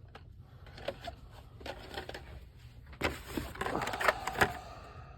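Hot Wheels blister-carded die-cast cars being handled and sorted, their plastic and card packaging clicking and crinkling, busiest for a second or so after about three seconds in.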